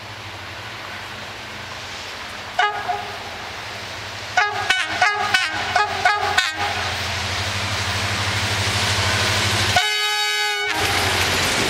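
Locomotive horn of an approaching passenger train: one short toot, then a quick run of about seven short toots, then one longer blast near the end. Under it the rumble of the oncoming locomotive and train grows steadily louder.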